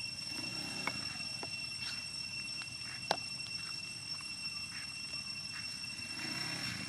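Steady high-pitched drone of evening insects over a low rumble, broken by a few faint clicks; the sharpest click comes about three seconds in.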